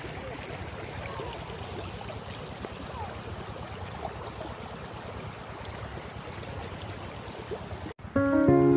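Steady rushing of a flowing stream, with a few short faint chirps over it. Near the end it cuts off abruptly and guitar music starts.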